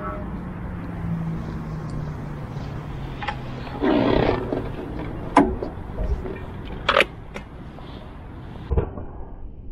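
Yamaha motorcycle standing with its engine running as a low steady hum. A brief roar comes about four seconds in, then several sharp knocks.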